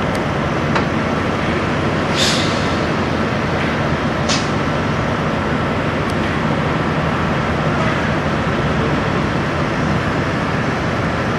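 Peterbilt semi truck's diesel engine running steadily as the rig rolls slowly by pulling a trailer, with two short hisses about two and four seconds in.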